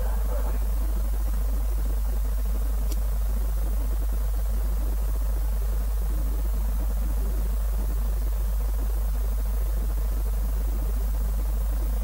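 Steady low electrical hum with faint hiss, and a single brief click about three seconds in.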